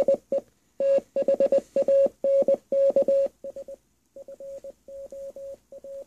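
Morse code (CW) tone generated by an online Morse code translator and played through a computer speaker: a single steady beep a little above 500 Hz keyed in dots and dashes with short gaps between letters. It drops noticeably in loudness a little past halfway.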